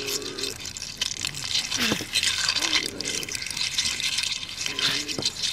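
Liquid splashing and spattering, with short strained vocal sounds breaking through near the start, in the middle and near the end.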